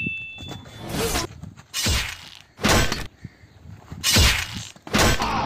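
Fight impacts: a string of about five heavy thuds, each with a crashing, hissing tail, coming roughly a second apart as a person is struck and thrown down.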